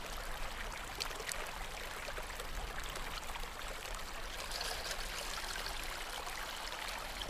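Water pouring in a steady, faint stream, a splashing flow of water running into a bucket.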